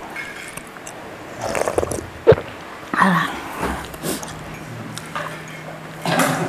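Small eating and handling noises at a meal table, with a ceramic mug set down with one sharp knock about two seconds in. A faint steady hum comes in over the last couple of seconds.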